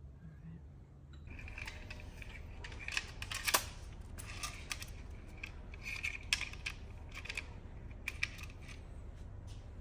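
Light, irregular metallic clicks and clinks from steel head studs being handled and started into the BMW N54 engine block, beginning about a second in, over a low steady hum.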